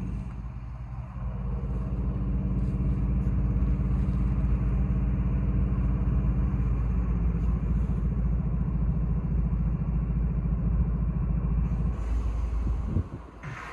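A large engine running steadily with a deep, even hum that turns into a fast low throb about seven seconds in, then cuts off sharply near the end.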